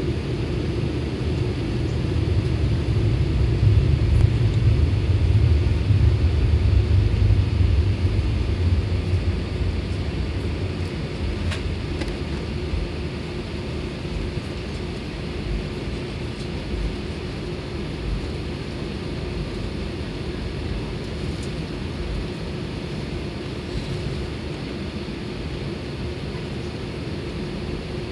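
Cabin noise inside an Airbus A320 taxiing: a steady engine hum and drone, with a low rumble that swells for several seconds in the first third and then settles to an even level.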